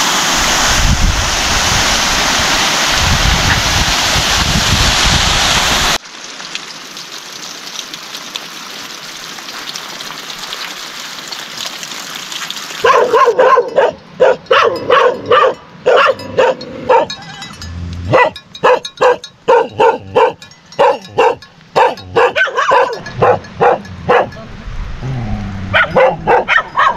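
Steady loud rush of water that cuts off abruptly about six seconds in, leaving a faint hiss. From about halfway through, a dog barks over and over in quick runs of short barks.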